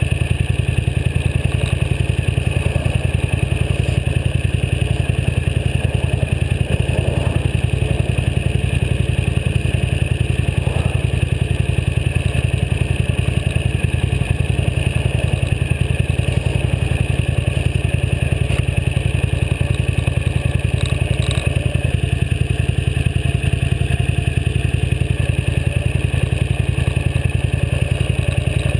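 Motorcycle engine running at a steady cruise on the road, a continuous low rumble that holds the same level throughout.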